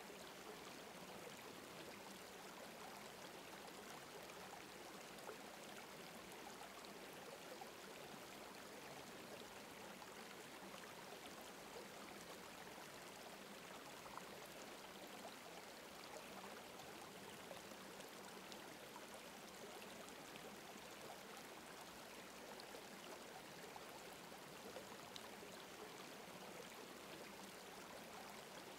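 Faint steady rushing noise, like a gently flowing stream.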